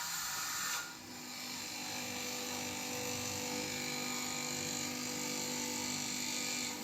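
Electric fabric cutting machine running with a steady motor hum. A hiss in the first second cuts off suddenly.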